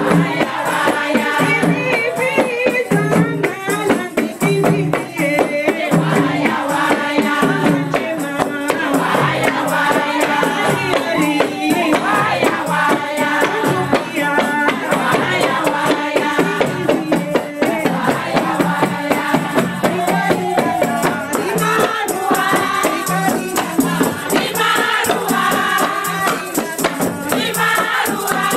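A women's group singing Comorian tari songs, a lead voice on a microphone answered by a chorus, over frame drums beaten in a fast, steady rhythm.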